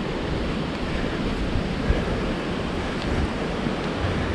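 Steady rush of mountain creek rapids, with wind buffeting the microphone and a single thump about two seconds in.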